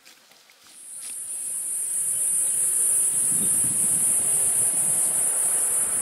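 Cicadas droning in one steady, shrill, high-pitched note that starts about a second in, with a lower rushing noise building up underneath from about two seconds in.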